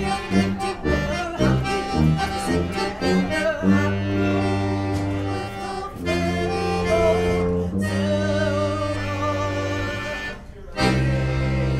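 Piano accordion and tuba playing a 1940s polka-style tune, the tuba carrying the low notes under the accordion's chords. It starts with short bouncy notes, moves into long held chords, breaks off briefly about ten and a half seconds in, then comes back in.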